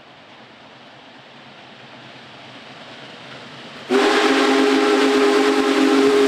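Union Pacific Big Boy 4014's steam whistle, coming in suddenly about four seconds in as a loud, steady multi-note chord with a hiss of steam, after a steadily rising rush of noise as the train draws near.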